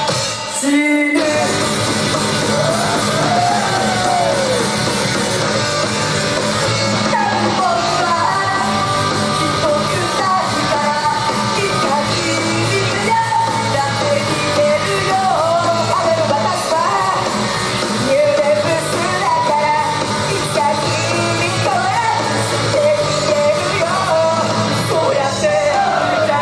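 Female idol group singing live into handheld microphones over loud rock music, with shouted lines mixed in. The music drops out briefly about a second in, then carries on.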